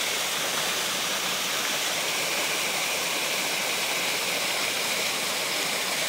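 Water falling steadily over a small creek waterfall, an even, unbroken rushing hiss loud enough to compete with a voice.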